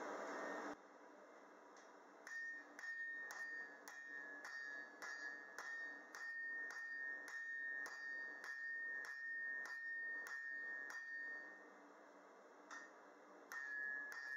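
Hand hammer striking a hot steel tong blank on a TFS anvil, about two blows a second, each blow leaving a high ringing tone from the anvil; the blows pause briefly near the end, then resume. A steady rushing noise cuts off abruptly under a second in.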